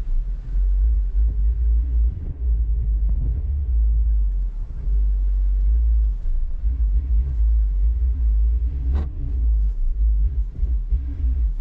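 Car reversing slowly, heard through a camera sitting on its roof: a continuous, uneven low rumble from the engine and the car's shaking carried into the roof-mounted camera. There is a short knock about nine seconds in.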